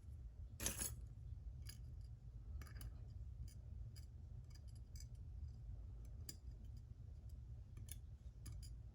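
Small metallic clicks and taps of a pin-tumbler padlock and its parts being handled. There is one sharper click about a second in, then sparse faint ticks over a steady low hum.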